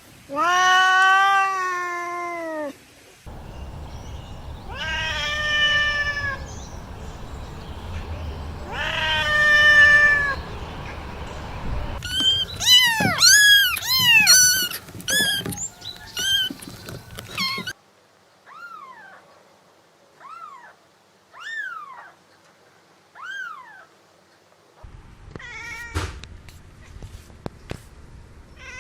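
Cats meowing in a string of separate recordings: three long drawn-out meows, then a burst of rapid high-pitched mews, then about five short thin mews spaced a second or so apart, and a few more mews with clicks near the end.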